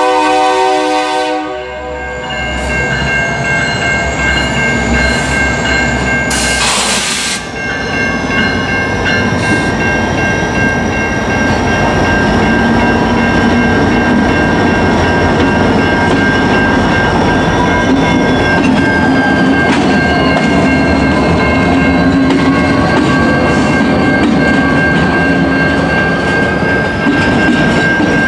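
Diesel freight train passing close by: the locomotive horn's chord cuts off about two seconds in. Then the EMD GP-series diesels drone past and the freight cars roll by with wheels clacking over the rails, under a steady high ring, with a brief hiss about seven seconds in.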